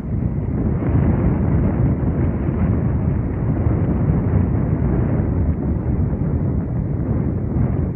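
Wind buffeting the microphone: a steady, loud low rumble with no bird calls heard.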